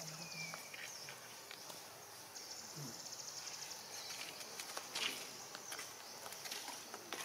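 Insects trilling high and fast, in spells that start and stop, with scattered soft clicks and a short falling chirp near the start.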